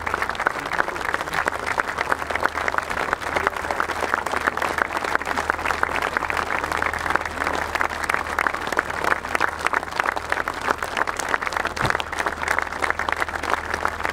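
Large stadium crowd applauding steadily, a dense continuous clapping.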